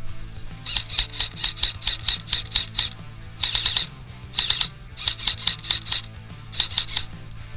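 Airsoft electric rifle firing strings of shots, about five quick cracks a second, with a tighter burst about three and a half seconds in and short pauses between strings.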